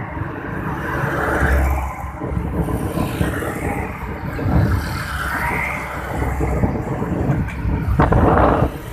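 Motorcycle riding along a road: continuous engine and road noise with wind gusting on the phone's microphone. About eight seconds in there is a louder scraping rustle as the phone is moved.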